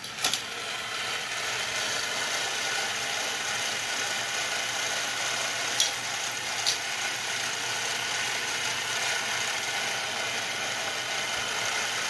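Tyco US-1 slot truck and its operating log-loading bulldozer accessory running, a steady whirring of small electric motor and plastic gears. Sharp plastic clicks come just after the start and twice about six seconds in, as the bulldozer pushes the logs into the dump truck's bed.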